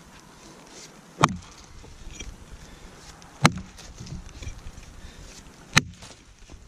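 Council Tool Boys Axe chopping into a felled log, three sharp strikes a little over two seconds apart.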